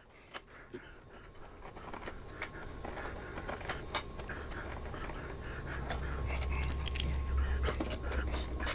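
Scattered small clicks and scrapes of hand-tool work: a Torx T20 bit being fitted and two small screws backed out of a motorcycle fairing's metal amp tray. A low hum builds in the second half.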